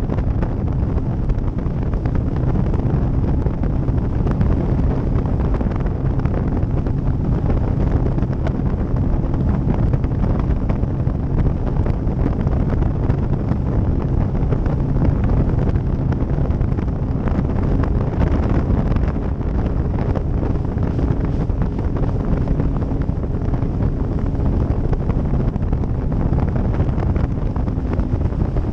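Steady wind buffeting the microphone of a Ranger Z118c bass boat running at speed. Underneath is the steady drone of its Mercury 150 Pro XS outboard and the rush of the hull over the water.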